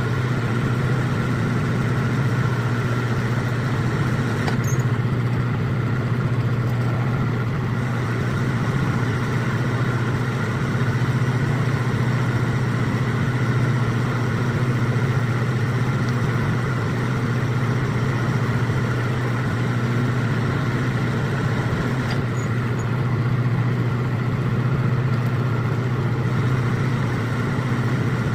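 Metal lathe running steadily while threading a rifle barrel to 5/8-24, a constant machine hum with a couple of faint ticks, sped up to double speed.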